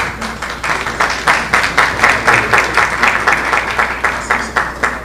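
Audience applause, the clapping falling into a fairly even beat of about four to five claps a second. It builds during the first second and fades near the end.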